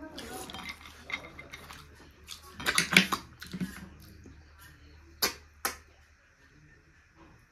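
Clinks and clicks of dishes and cutlery during a meal: a quick cluster of sharp clicks about three seconds in, then two single clicks a couple of seconds later.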